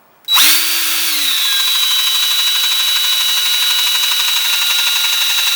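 Power drill turning a step bit (unibit) to bore out a hole in a plastic handle to the next step size. The motor starts about a third of a second in, then runs steadily with a high whine.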